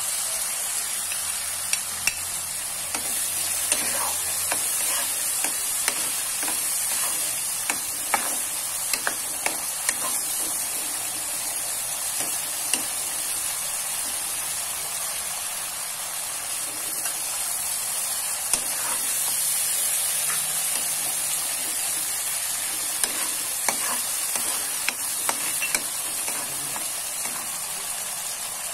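Ground chili sambal with anchovies frying in oil in a wok, sizzling steadily, with scattered clicks and scrapes of a flat spatula stirring against the pan.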